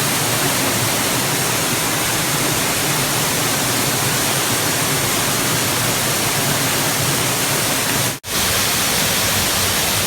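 Waterfall, a loud, even rush of falling water that cuts out for an instant about eight seconds in.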